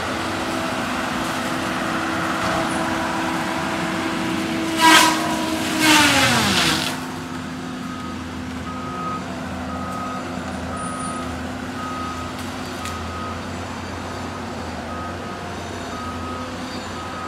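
Cat 573C feller buncher running with its saw head spinning at a steady pitch. About five seconds in the saw hits a tree in two short, loud cuts, and the pitch drops as the blade slows under the wood. Afterwards the machine runs on under a repeating high beep from its backup alarm.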